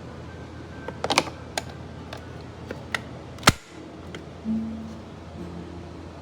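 Plastic buttons on a Hamilton Beach FlexBrew single-serve coffee maker clicking as they are pressed: a few clicks, then one sharp loud click. Brief low hums follow, while the machine fails to brew.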